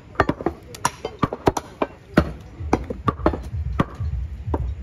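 Heavy butcher's knife chopping and cutting beef on a round wooden log block: a run of sharp, irregular chops, about two or three a second. A low rumble sits underneath from about two seconds in.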